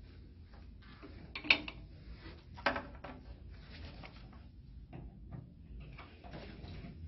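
Handling noises: two sharp knocks a little over a second apart, with light rustling and shuffling between and after.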